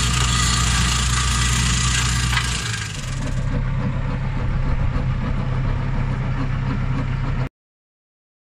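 Tractor engine running with a PTO-driven Blackstone BM 150 Hydro flail mower shredding grass. About three seconds in, the sound changes to a different steady running, and it cuts off suddenly near the end.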